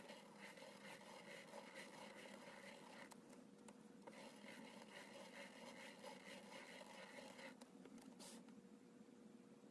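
Faint scratching of a pen tip on paper as it is driven round in a plastic Spirograph gear. It stops about three quarters of the way in, followed by a brief rustle.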